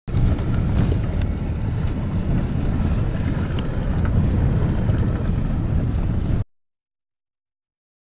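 Wind buffeting the microphone together with road noise while filming out of a moving car. It is a loud, steady low rumble that cuts off suddenly about six and a half seconds in.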